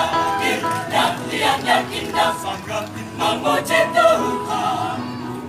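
Mixed choir of women's and men's voices singing in several parts at once.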